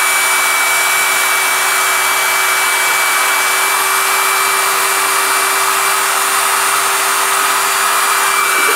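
Electric drill running at a steady speed, driving a small self-priming rotary drill pump, a constant motor whine over a steady rush. Water pumped through the hose pours in a stream into a plastic bucket.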